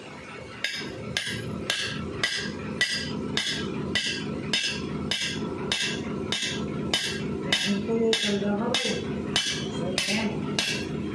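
Hammer blows on metal: a steady run of about two strikes a second that starts about half a second in, each strike with a short metallic ring.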